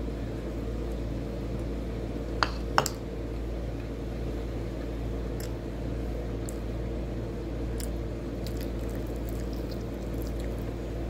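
Mouth-closed chewing of rice and food eaten by hand, with soft squishy mouth sounds over a steady low hum. Two sharp clicks come close together about two and a half seconds in.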